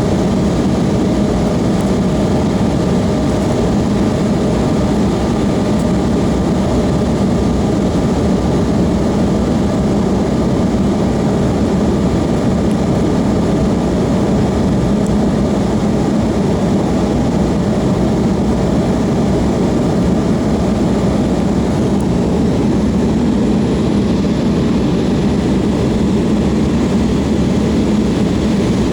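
Passenger aircraft engines running steadily, heard as an even drone with a few constant tones.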